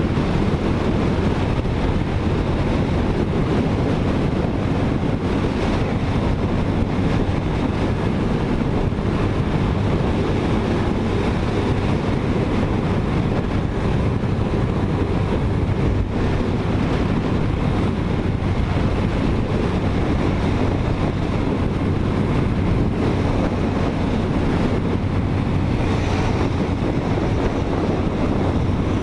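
Motorcycle cruising at steady speed on a highway: a constant engine hum under heavy wind noise buffeting the rider's microphone.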